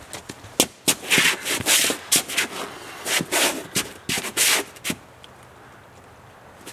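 Rustling and scuffing of footsteps and handled gear on a nylon bouldering crash pad: a run of short, noisy scrapes that dies down about five seconds in.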